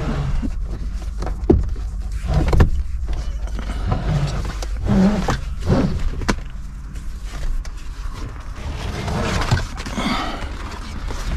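Cargo strap with a metal buckle being handled and threaded: scattered knocks and clicks with some rustling, over a steady low hum.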